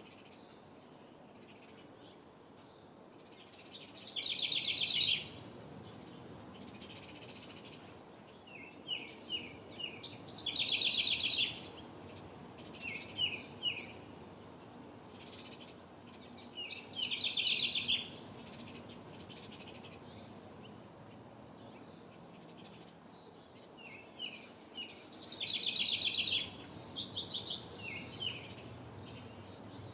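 A wren singing four times, each song a fast bubbling trill of about a second and a half that starts high and drops, with short quick notes in between.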